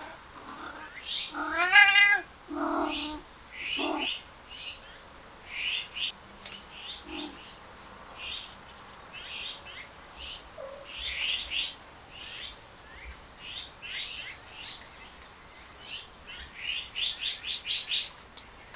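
A cat gives one loud drawn-out meow about a second and a half in, then two shorter calls by about four seconds. Small birds chirp throughout, with a quick run of chirps near the end.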